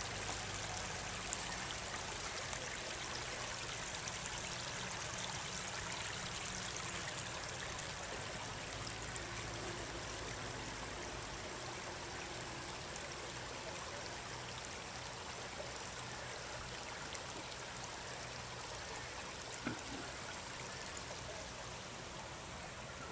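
Shallow rocky stream trickling and burbling over stones, a steady rush of water that grows a little fainter toward the end.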